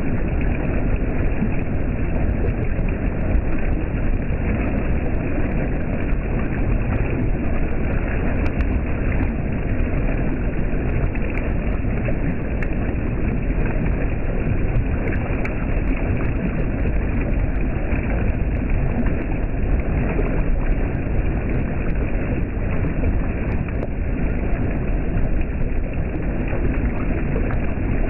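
Water flowing over the stones of a small dam, a steady rushing with no change in level.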